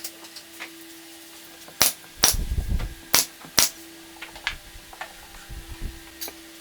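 Several sharp knocks and clacks. About four loud ones come in the middle, one of them with a short low thud, then lighter clicks, all over a steady low hum.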